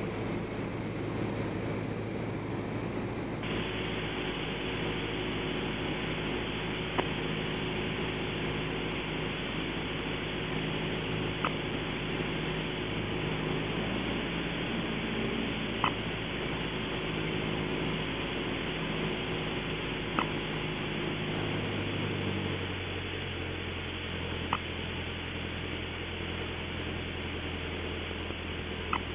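Cabin noise of a Piper PA-28-180 Cherokee Archer's four-cylinder Lycoming O-360 engine and propeller in flight, a steady drone on final approach. About 22 seconds in the engine note changes and settles into a lower hum as power is brought back for the landing. A faint click sounds every four seconds or so.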